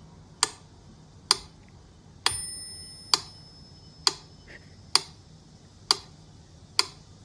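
Sharp ticks at an even pace, a little faster than one a second, like a clock ticking; one tick about two seconds in carries a brief bell-like ring.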